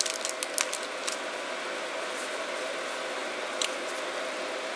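Small plastic parts bag crinkling and clicking in gloved hands for about the first second as a new O-ring is taken out, with one more light click a few seconds later. A steady machine hum runs underneath.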